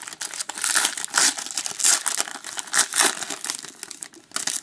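Wrapper of a 2012-13 Panini Certified hockey card pack being torn open and crinkled by hand, an uneven run of rustles.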